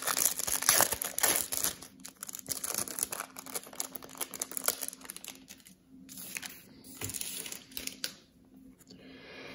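Plastic trading-card pack wrapper crinkling as it is handled and the cards are slid out of it, loudest in the first couple of seconds, then quieter scattered crinkles and clicks.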